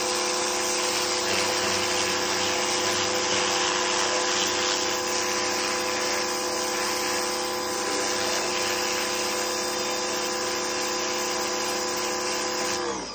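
Pressure washer running steadily, its motor and pump humming under the hiss of the spray jet on the pavement. Near the end the motor winds down, its hum falling in pitch.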